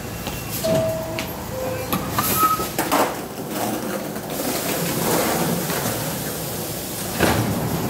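New York City subway car door chime, two falling tones, then the train's sliding doors closing with a knock about three seconds in, and a second knock near the end.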